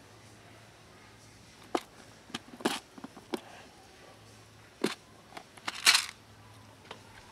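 Plastic clip-lock food container holding dry cat food being opened: a string of sharp clicks and snaps as its latches are unfastened, then a longer, louder rattling scrape about six seconds in as the lid comes off.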